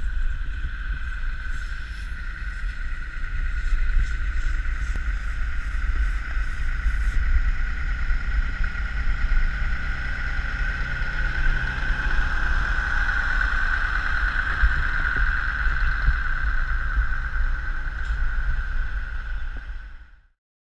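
Heavy farm machinery running steadily: a constant high whine over a low rumble, swelling slightly midway, then cutting off suddenly near the end.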